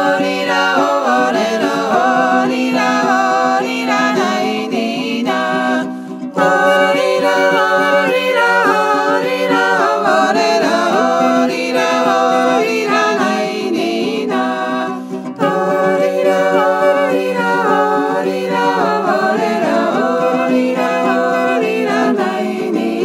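Georgian folk song sung by a small vocal ensemble without instruments, the voices in harmony over a held low note. The singing breaks off briefly twice, about six and fifteen seconds in.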